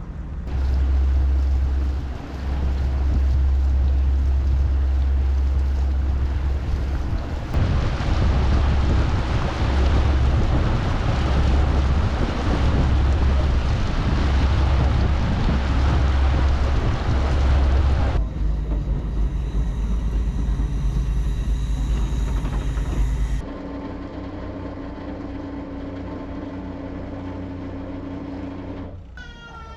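Wind buffeting the microphone aboard a lake cruise boat, over the boat's steady engine hum. The sound changes abruptly several times where clips are cut, ending on a quieter, steadier engine drone.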